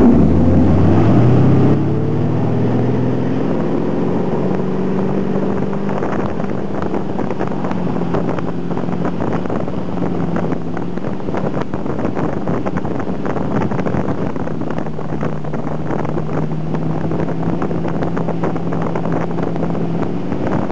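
Tow boat's engine rising in pitch as the boat speeds up over the first few seconds, then running steadily at speed, over the hiss of water spray and wind on the microphone.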